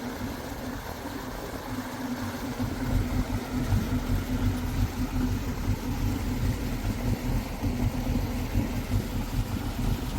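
Sea-Doo 3D jet ski's Rotax 787 RFI two-stroke twin engine idling, a little louder and more uneven from about two seconds in.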